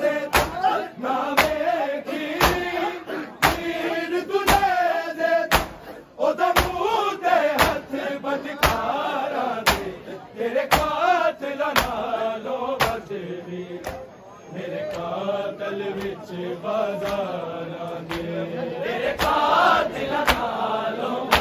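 Male voices chanting a nauha, a Shia mourning lament, over a steady beat of sharp hand slaps on bare chests (matam), a little more than one slap a second.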